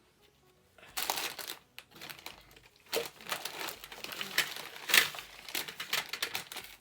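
Scissors cutting through a bulky handmade artificial dreadlock to thin it: crinkly rustling of the fibres with sharp snips, starting about a second in and going on until just before the end.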